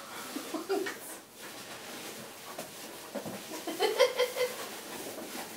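Rustling and rummaging through a cardboard box filled with loose polystyrene packing peanuts, with a brief voice sound about four seconds in.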